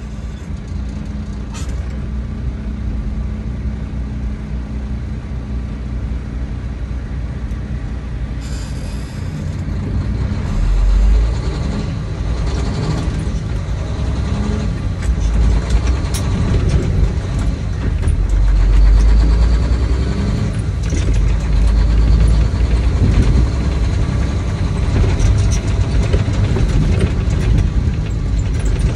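A truck's engine running, a steady low drone, with a brief hiss of air about eight and a half seconds in. The low rumble grows louder from about ten seconds on.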